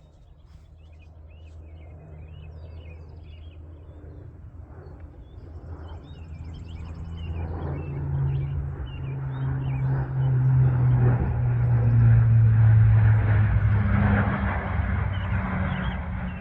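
An engine-driven vehicle approaching and passing: a low drone that grows steadily louder, is loudest about twelve seconds in, then eases off a little. Birds chirp at the start.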